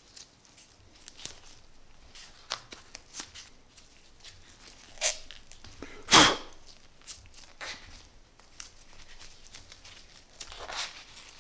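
Gloved hands working adhesive-backed polyurethane foam handlebar tape around a brake lever: scattered small rustles, rubs and clicks, with one louder brief noise about six seconds in.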